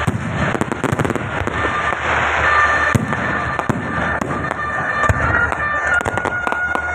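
Fireworks going off: a continuous hiss with many sharp crackles and pops, and a few steady whistling tones throughout.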